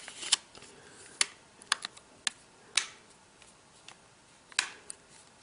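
Plastic back cover of a Samsung Galaxy Nexus phone being pressed back on, its clips snapping into place as a series of sharp clicks at irregular intervals.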